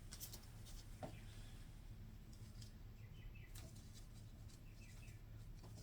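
Near silence: a low steady hum with a few faint clicks and two short runs of small chirps.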